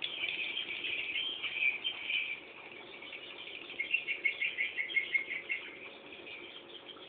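Swiftlet chicks twittering, a dense stream of rapid high chirps, louder at first, then a run of quick separate chirps partway through.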